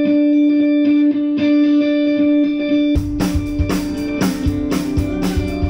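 Live rock band playing: a distorted electric guitar holds one long note, then drums and the rest of the band come in hard about three seconds in.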